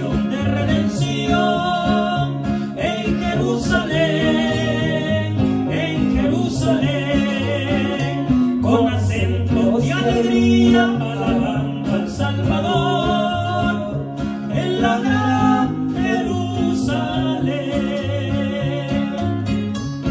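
Two men singing a Spanish-language Christian song together, accompanied by two acoustic guitars.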